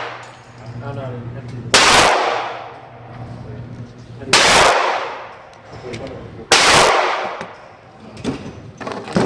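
Gunshots: three loud shots about two seconds apart, each trailing off in a long echo, then a smaller bang near the end.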